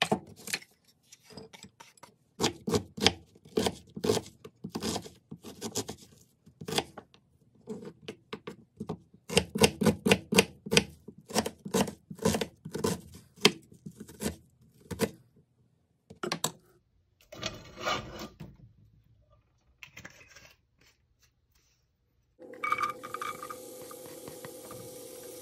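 Kitchen knife chopping garlic and onion on a wooden cutting board: runs of quick, sharp chops with short pauses. Near the end, after a few seconds of near quiet, diced onion goes into hot oil in a nonstick wok and sizzles steadily.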